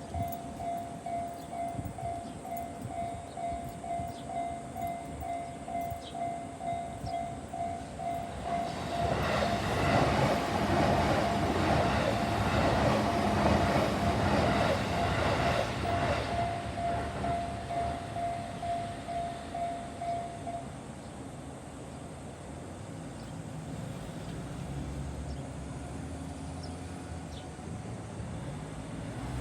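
Japanese railroad crossing bell clanging steadily at about two strokes a second while a JR Yokohama Line train passes through the crossing, the train's rush and rumble swelling loud for several seconds. The bell stops about two-thirds of the way in, leaving quieter street sound.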